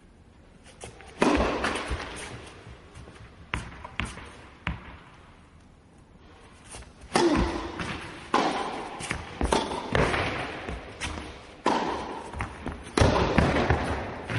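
Tennis balls being struck with a racket and bouncing: sharp hits every second or two, each followed by a long echoing decay.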